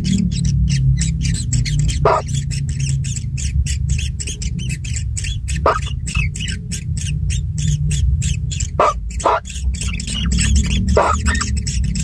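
White-throated kingfisher nestlings begging, a rapid run of short high chirps with a few louder squawks mixed in, over a steady low hum.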